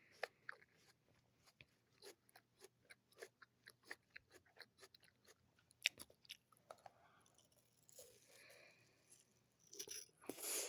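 Someone chewing crisp apple: a run of small, irregular crunches, with one sharper crunch about six seconds in. A short breathy noise comes near the end.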